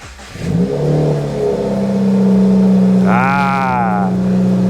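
2020 Subaru WRX's turbocharged flat-four engine starting: a short crank that rises as it catches, then settling into a steady idle with no knock to be heard, the noise that had sounded like rod knock now cured. A brief rising-and-falling voice-like call about three seconds in.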